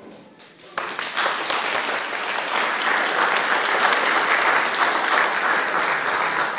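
Audience applauding, starting abruptly about a second in and building to steady, loud clapping at the end of a children's choir song.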